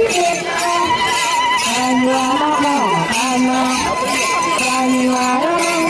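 A group of voices singing a traditional call-and-response chant, with long held low notes that slide down at their ends. A high, wavering voice is held above them.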